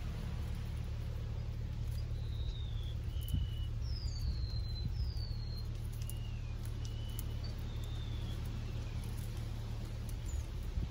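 A bird calling a series of short whistled notes, several sliding down in pitch, over a steady low rumble.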